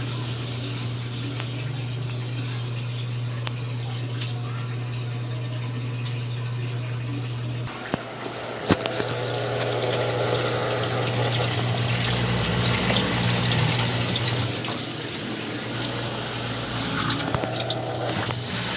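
Consul Facilite 10 kg top-loading washing machine filling with water: water rushes into the tub over a steady low hum. After a click about eight seconds in, the water noise grows louder and splashier.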